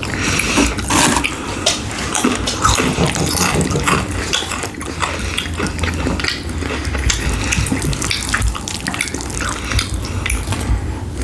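Close-miked eating sounds: wet chewing and mouth smacking, a dense run of small irregular clicks and squelches.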